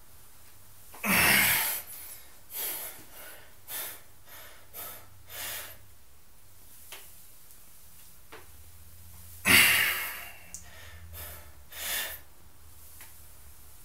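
Heavy breathing of a person doing barbell squats: a loud, forceful exhale about a second in and another about two-thirds through, each followed by several shorter, quieter breaths.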